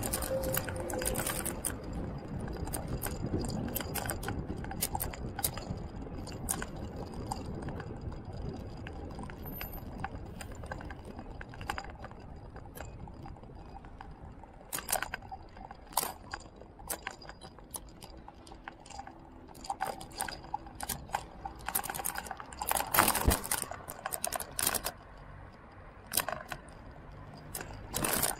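Ride noise from a vehicle moving along a paved road: a steady rush of wind and tyre rumble that slowly eases, with frequent sharp clicks and rattles that bunch together near the end.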